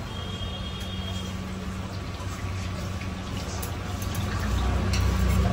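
Oil sizzling steadily under a stuffed Mughlai paratha shallow-frying on a flat iron tawa, over a steady low hum. A few light spatula scrapes on the griddle come in near the end.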